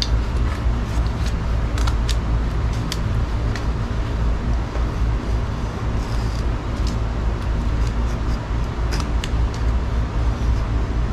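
Knife blade carving wood: short, sharp scrapes and ticks at irregular intervals as the edge cuts into the wood. A steady low rumble runs underneath throughout.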